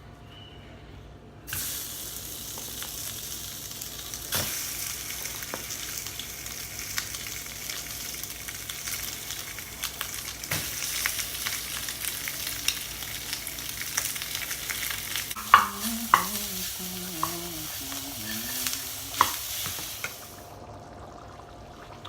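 Sauce of vegetables, pancetta and tomato sizzling in a hot pot as it is stirred: a steady crackling hiss with sharp pops and spoon clicks. It starts suddenly a second or so in and stops shortly before the end.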